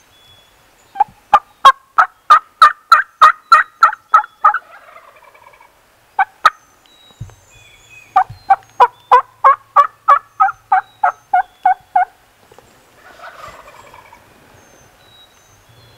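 Turkey yelping: two loud runs of about a dozen evenly spaced yelps each, every note breaking from a higher to a lower pitch, with two short sharp notes between the runs.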